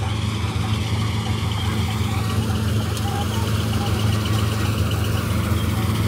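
Combine harvester running steadily as it cuts standing wheat: a continuous low diesel-engine hum with the rattle of its machinery.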